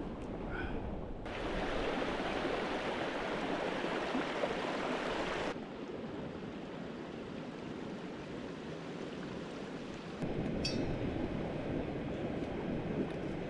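Steady outdoor wind noise on the microphone, with no clear tones, changing abruptly several times as short clips are cut together. A faint short chirp sounds near the start.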